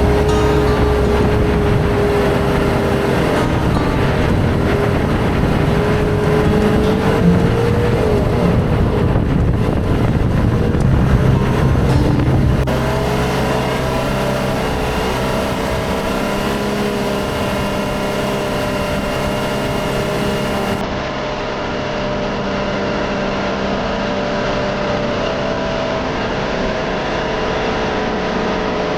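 Toyota Land Cruiser 78 running as it drives, with a steady engine hum and a low rumble that eases about twelve seconds in.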